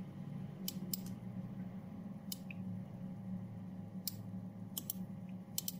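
Computer mouse buttons clicking a handful of times, some clicks in quick pairs, over a steady low hum.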